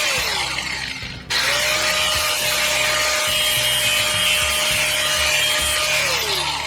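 Power tool cutting through the metal swivel plate, a steady motor note over loud cutting noise. The motor winds down just after the start, stops briefly, starts again about a second in, and winds down again near the end.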